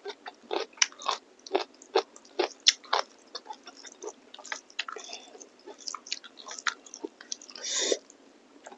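Close-up chewing and biting of beef innards and meat curry: an irregular run of wet, crunchy mouth clicks, two or three a second, with a short longer rush of sound near the end.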